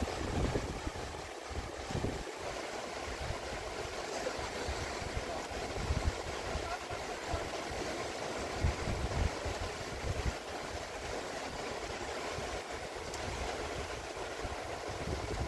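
Fast river rapids rushing steadily, with wind gusting on the microphone in irregular low rumbles.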